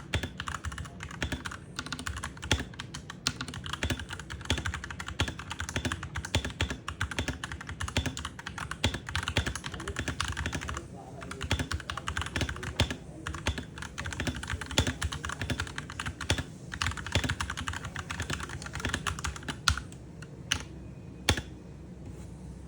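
Typing on a Royal Kludge G68 wireless 65% mechanical keyboard: a fast, continuous clatter of keystrokes with a couple of brief pauses, thinning to a few single key presses near the end.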